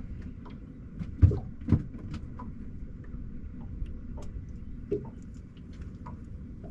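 Two loud dull knocks about half a second apart, a little over a second in, over a steady low rumble, with scattered small clicks and taps.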